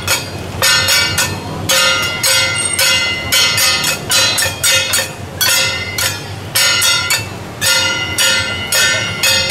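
Temple-procession percussion of gongs and cymbals struck in a quick, steady rhythm, about three ringing metallic strikes a second.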